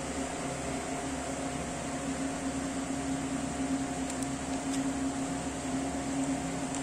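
A steady machine hum over an even hiss, with two or three faint ticks about four to five seconds in.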